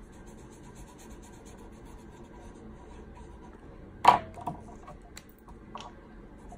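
Felt-tip marker rubbing on paper in quick short strokes, colouring in. About four seconds in, a sharp clack as a plastic marker is set down among the others on the table and another picked up, followed by a few lighter clicks.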